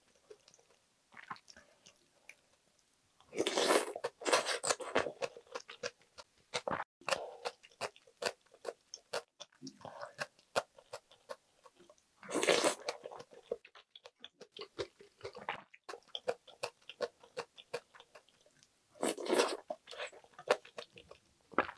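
Close-miked eating of budae-jjigae: wet chewing and lip smacks as many small, quick clicks. Three louder slurps of stew noodles come about 4, 12 and 19 seconds in, each lasting about a second.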